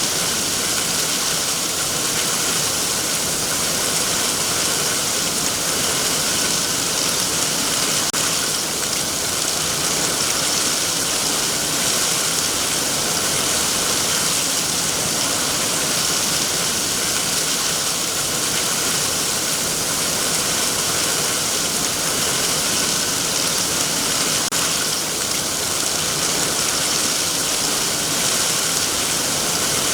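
Heavy rain falling steadily on trees: a dense, even hiss of drops with no let-up.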